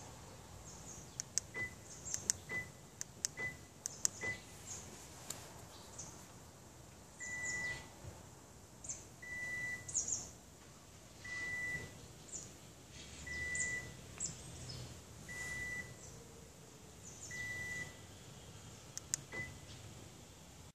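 Electronic beeper sounding one steady high tone: a quick run of short beeps, then longer single beeps about every two seconds, with a last short beep near the end. Scattered clicks and rustling sound in between.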